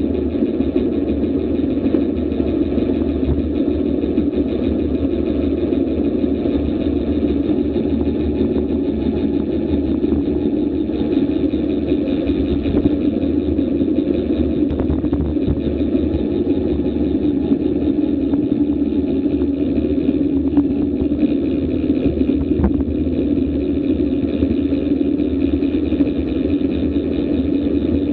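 Steady wind rush and road noise on a bicycle-mounted action camera during a fast road descent at about 20 to 30 mph, with a few faint ticks from the bike over the road surface.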